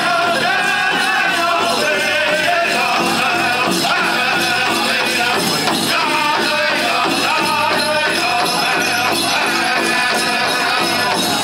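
Pow wow drum group singing a chicken dance song over a steady beat on the big drum, with the jingling of the dancers' leg bells.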